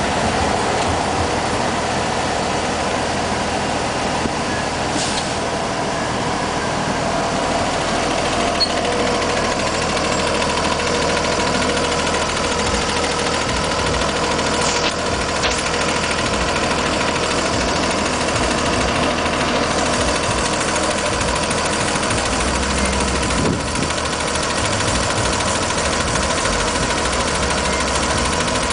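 City bus engine idling steadily at the curb, a constant hum with a few held tones.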